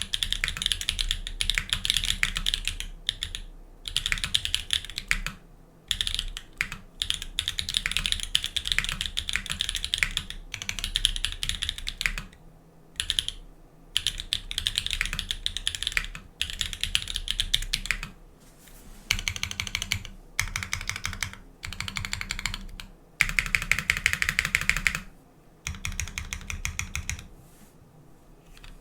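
GeonWorks F1-8X mechanical keyboard with lubed Everglide Dark Jade linear switches and GMK ASCII keycaps, typed on quickly in bursts of rapid keystrokes with short pauses between them. The typing stops near the end.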